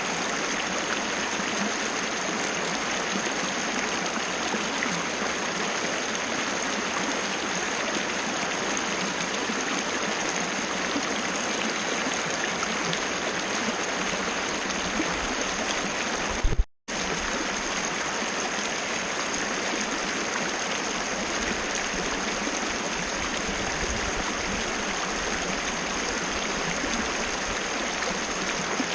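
Waterfall splashing and rushing in a steady, even wash of water noise, with a thin steady high tone beneath it. About 17 s in, the sound cuts out completely for a split second just after a short loud click, then resumes unchanged.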